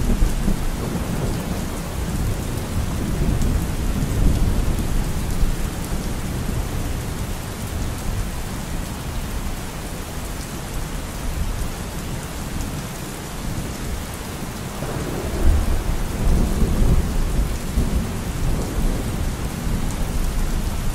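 Steady rain with low thunder rumbling, swelling near the start and again about 15 seconds in.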